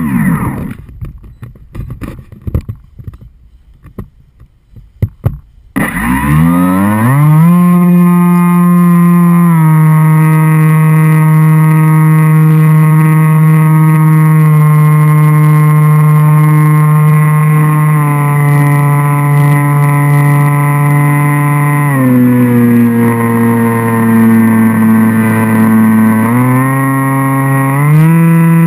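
Brushless outboard motor (Turnigy L3010B-1300) turning an APC 10x6 propeller on an FPV flying wing, heard from the wing's onboard camera. For the first six seconds there is only uneven wind buffeting and knocks. The motor then spins up with a rising whine and runs at a steady high pitch, drops to a lower throttle about 22 seconds in, and climbs back near the end.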